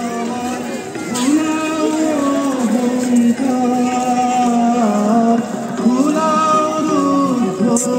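A song: a singer holds long, sliding melody notes over instrumental accompaniment.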